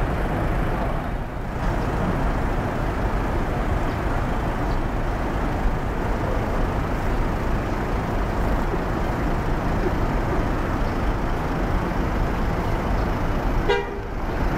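Diesel bus engines running at a busy bus terminal as an intercity coach drives past, with a steady wash of traffic noise. A brief pitched sound comes near the end.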